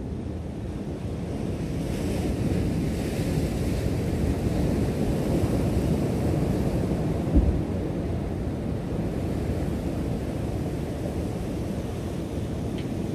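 Ocean surf washing against rocks, a steady rushing that swells and eases, with wind buffeting the microphone. A brief low thump about halfway through.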